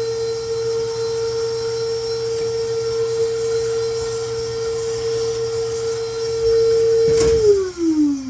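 A vacuum cleaner runs with a steady high whine while it sucks grinding dust from a skate sharpener's wheel head. About seven seconds in it clicks off, and its whine falls steadily in pitch as the motor spins down.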